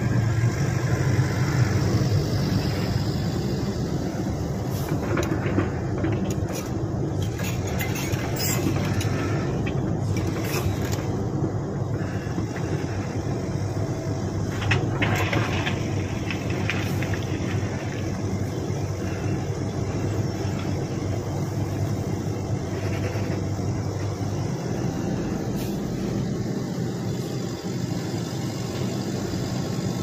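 Shantui SE135 hydraulic excavator's diesel engine running steadily close by, with a few short knocks and scrapes in the first half as the machine works.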